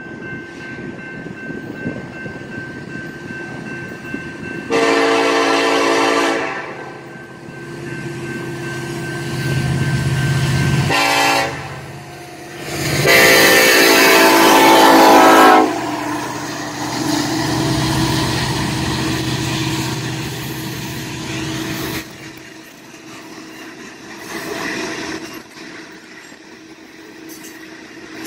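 Diesel freight locomotive sounding its horn for a grade crossing: a long blast, a short one, then a long and loudest blast as it reaches the crossing about halfway through. After that, the rumble of the engine and the rolling of coal hopper cars going past.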